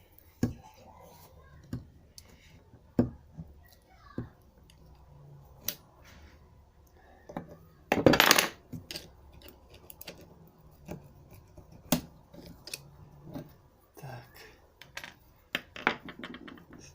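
Hand tools clicking and knocking on the metal parts of a car steering rack as a retaining stop is worked off it: a series of separate sharp clicks, with one louder clattering burst of about half a second around eight seconds in.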